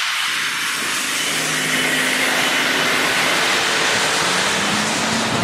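Steady rushing noise with a low engine hum that comes in about a second and a half in and rises slightly in pitch near the end: a road vehicle going by.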